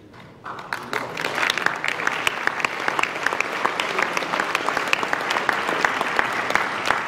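Audience applauding, starting about half a second in, with sharp individual claps close by standing out above the general clapping.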